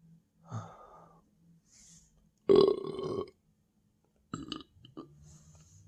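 A person belching after a huge meal: a short belch about half a second in, a long, loud belch from about two and a half seconds in lasting nearly a second, then a shorter belch about a second later.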